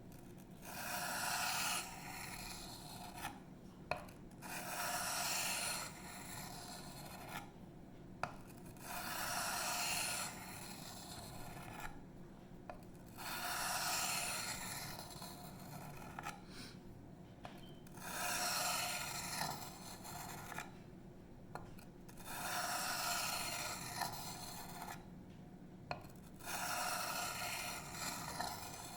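Steel knife blade, a 154CM chisel-ground Emerson Mini A100, drawn along a sharpening stone in slow scraping strokes, seven in all, each lasting about two seconds with short pauses between them.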